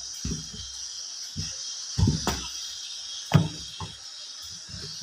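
Knocks and metal clanks as a hooked steel tyre lever bar is worked against a truck wheel's steel rim and boots press on the tubeless tyre to lever its bead off the rim. The loudest are about two seconds in and again past three seconds, over a steady high-pitched hiss.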